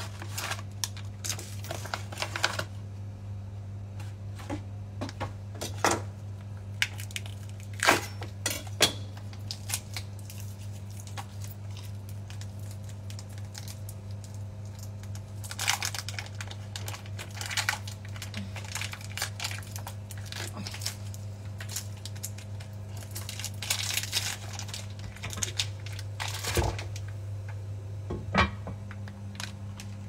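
Instant-food packaging handled and opened: paper and plastic wrappers crinkling and tearing in scattered bursts, with a few sharp clicks. A steady low hum runs underneath.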